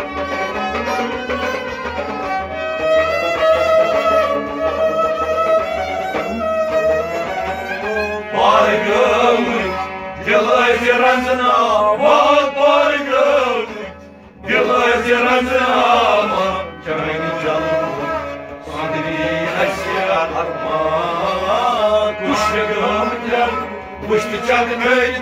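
Folk music from a small ensemble: a harmonium holding a sustained melody over a clay goblet drum beating about twice a second. A man's singing comes in about eight seconds in, breaks off briefly halfway through, then carries on.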